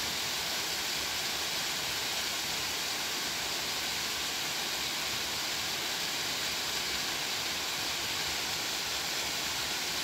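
Small waterfall spilling down a rocky cascade, a steady, unbroken rush of falling water.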